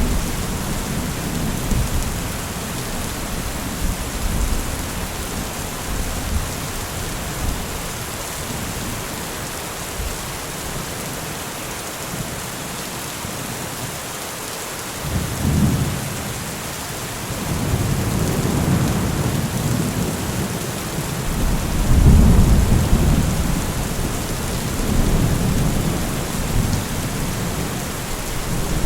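Steady heavy rain with thunder rolling underneath. The low rumble fades away, returns about halfway through, and is loudest a little past two-thirds of the way.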